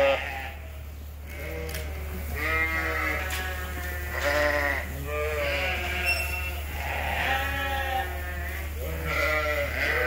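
Newly weaned Dorset ram lambs bleating, call after call about every second, with several lambs calling over one another, over a steady low hum.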